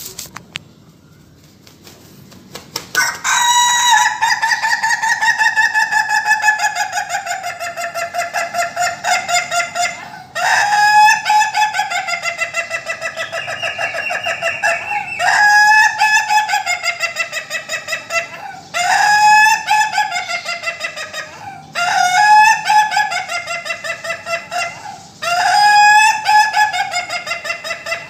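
Ayam ketawa (Indonesian laughing chicken) rooster crowing six times, each crow a long run of rapid stuttering notes that gives the breed's laughing sound. The first crow starts about three seconds in and is the longest, about seven seconds; the others follow every three to five seconds.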